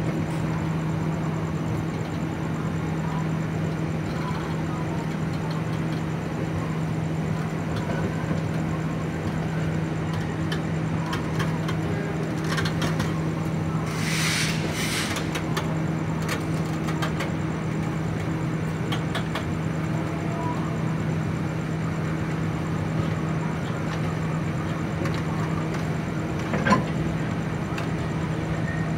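Passenger train coaches being shunted backwards slowly past, rumbling on the rails over a steady low hum. A short hiss comes about halfway through, and a single sharp knock comes near the end.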